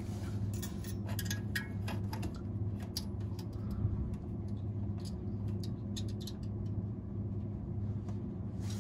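Light clicks and taps of multimeter test probes against the compressor's electrical terminals while the windings are ohmed out, part of checking a compressor that tripped on thermal overload. They come in scattered bunches over a steady low mechanical hum.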